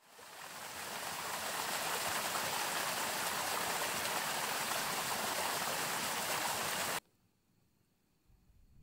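Small waterfall splashing over rocks into a pool: a steady rush of falling water that fades in at the start and cuts off abruptly about seven seconds in.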